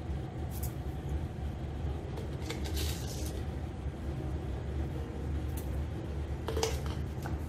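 Steady low kitchen rumble with a few faint clicks as a plastic spoon drops salt into a steel pan.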